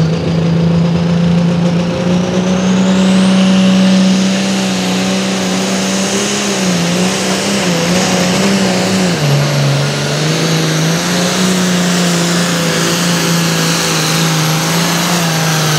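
Turbocharged 466-cubic-inch diesel of a Light Limited Turbo pulling tractor running flat out under sled load, with a high turbo whine that climbs over the first four seconds and then holds. The engine note wavers, drops a step about nine seconds in, and starts to fall near the end.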